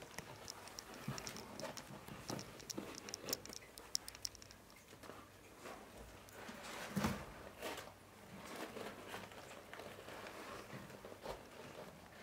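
Kittens scratching and digging in cat litter in a plastic litter box: irregular faint scratchy clicks and rustles of granules, with a louder bump about seven seconds in.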